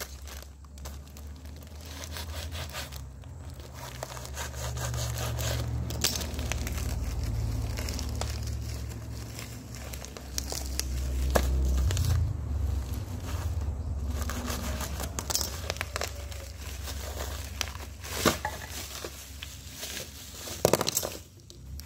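Bubble wrap and plastic packaging being pulled and torn off a parcel by hand: continuous crinkling and tearing with sharp crackles, the loudest about halfway through and near the end, over a low rumble.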